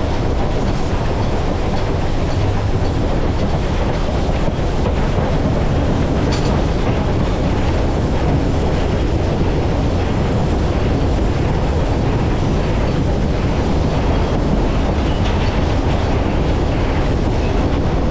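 Polson 70 steam locomotive running along the track, heard from inside its cab: a steady, loud rumble and clatter of wheels and running gear on the rails.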